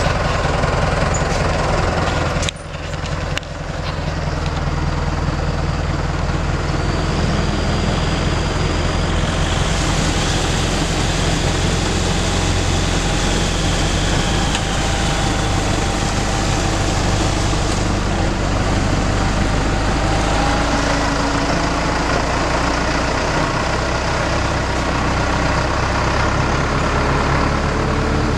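Tractor engine running steadily as the tractor drives. There is a short drop in level about two and a half seconds in.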